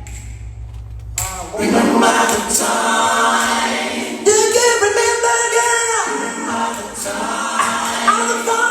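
Several voices singing together in harmony without instruments. They come in about a second and a half in, over a low steady hum that stops as they begin.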